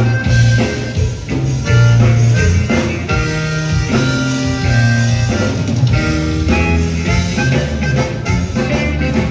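Live conjunto band playing: button accordion over electric guitar, bass guitar and drum kit.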